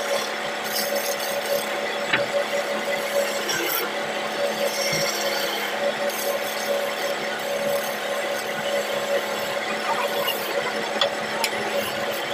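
Wood lathe spinning a wooden bed-leg blank while a hand-held turning chisel cuts and scrapes along it: a steady rasping scrape over the even hum of the running lathe.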